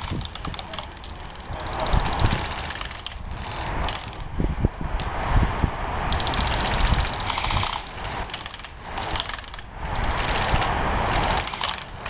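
Rapid rattling clicks in runs of a few seconds, over a low rumble of wind and handling on the microphone.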